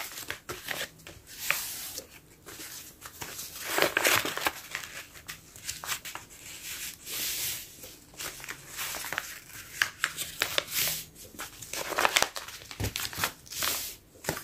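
A sheet of paper being folded and creased by hand into a paper airplane: irregular crinkling and rustling as the page is bent and the folds are pressed flat with the fingers, louder about four seconds in and again near the end.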